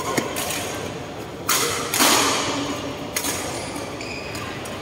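A badminton rally in an echoing sports hall: sharp racket strikes on the shuttlecock, one right at the start and another about four seconds in, with thuds and scuffs of play on the court between them.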